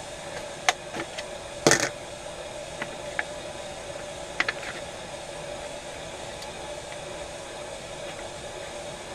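Steady hiss with a few light clicks and knocks from things being handled close to the microphone, the loudest knock just under two seconds in; after about five seconds only the hiss remains.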